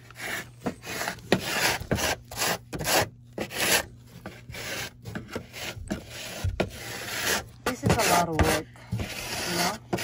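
Rust scale being scraped and scooped up by hand in a corroded metal AC drip pan: a string of irregular rasping scrapes and rubs.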